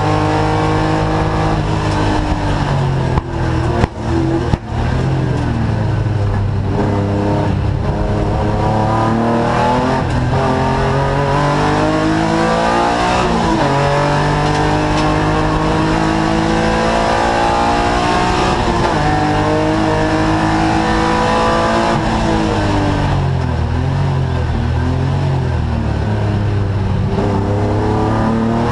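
Race car engine heard from inside the cockpit, running hard and revving up and down through the gears: pitch climbs under acceleration and falls back at each shift and under braking for corners. A few brief sharp cuts in the sound come about three to five seconds in.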